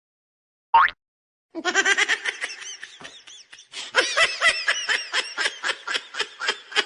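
High-pitched laughter: a short rising squeal, then a long run of quick, repeated laughs at about five a second.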